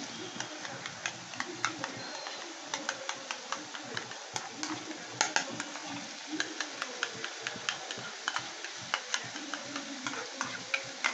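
A spoon clicking irregularly against a bowl as sour yogurt is whisked smooth so it won't curdle, over the steady sizzle of masala frying in the pan.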